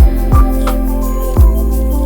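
Background music with sustained synth chords, deep bass and a steady kick-drum beat.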